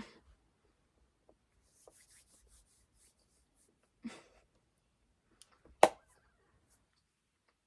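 Quiet handling of a small wrapped treat: faint rustling of the wrapper, a soft bump about four seconds in, and a single sharp knock near six seconds, the loudest sound.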